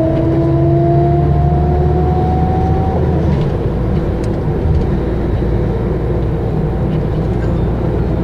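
Mercedes-Benz O 550 Integro bus under way: its diesel engine running with the whine of its ZF Ecomat five-speed automatic gearbox rising slowly in pitch as it accelerates. About three seconds in the whine breaks off and the engine runs on steadily.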